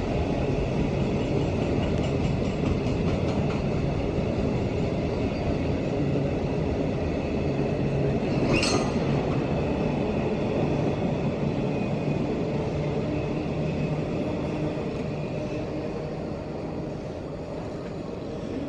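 Train running with a steady rumble and low hum, a brief high squeal near the middle, growing quieter over the last few seconds.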